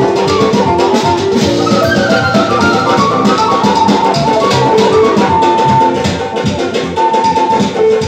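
Azerbaijani tütək playing an amplified melody of held notes over a steady drum beat.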